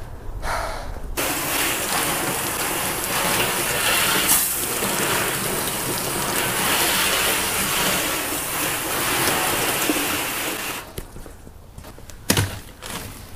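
Water from a garden hose spray nozzle hitting a pickup truck bed, rinsing off soap: a steady hiss and patter that starts about a second in and stops shortly before the end. A single sharp knock follows near the end.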